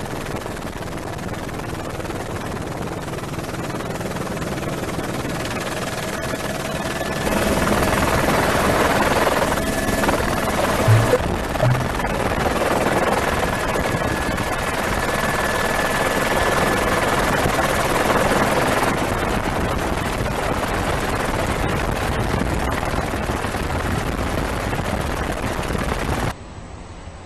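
Helicopter engine and rotor noise heard from the aircraft: a steady rushing roar with a thin high whine, growing louder through the middle stretch, with two short low thuds about eleven seconds in.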